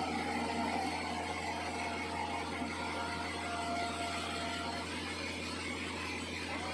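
Sawmill machinery running steadily, a constant low hum with a faint whine above it.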